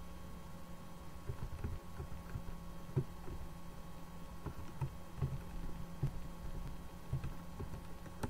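Computer keyboard typing: irregular keystroke clicks with short pauses between bursts, over a steady low electrical hum.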